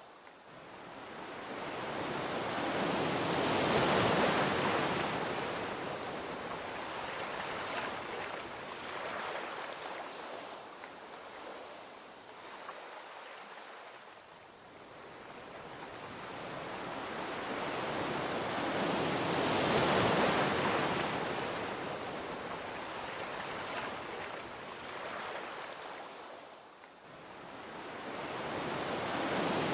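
Gentle ocean waves washing onto a beach: slow swells of surf noise, one breaking about four seconds in and another about twenty seconds in, each fading away before the next, with a third building near the end.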